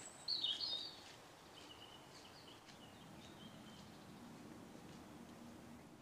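Small birds chirping in woodland: a few short high calls in the first second, then fainter chirps over quiet outdoor background.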